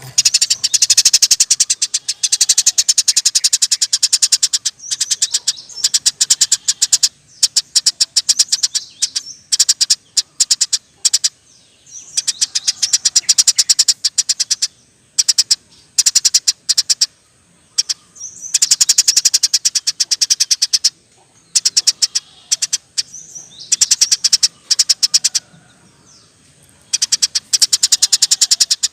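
Eurasian tree sparrow singing in fast, rattling runs of high chirps, in bouts of a few seconds broken by short pauses.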